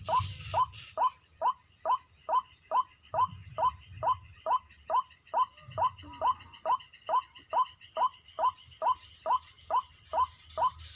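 White-breasted waterhen calling: a long, regular run of short falling notes, a little over two a second, over a steady high insect drone.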